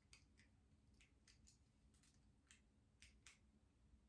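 Near silence: room tone with a scattered handful of faint clicks.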